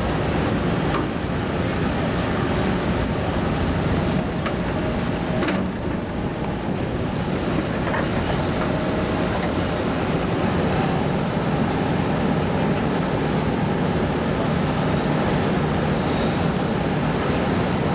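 Hitachi ZX210LC excavator working: its diesel engine and hydraulics running steadily under load, with a few sharp knocks in the first half.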